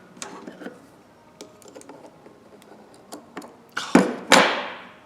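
Small metal clicks and taps as a ratchet's parts and retaining clip are worked by hand, then two loud clattering knocks about four seconds in.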